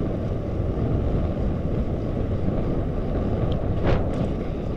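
Wind buffeting the microphone of a bike-mounted action camera while cycling, a steady low rumble, with a brief hiss about four seconds in.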